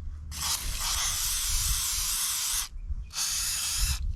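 Aerosol spray lubricant sprayed onto a lawnmower wheel's shaft in two hissing bursts, a long one and then a shorter one, to free up a wheel that had seized.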